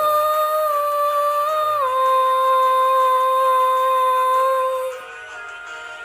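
A female voice holds one long wordless sung note over orchestral song accompaniment. The note drops a step in pitch about two seconds in and fades out about five seconds in, leaving the backing music.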